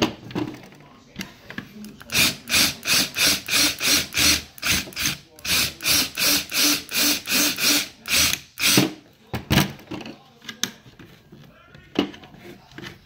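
Power drill drilling out a metal rivet, run in quick short bursts of about three a second with the trigger pulsed, so as not to heat the rivet too much; a few separate knocks follow near the end.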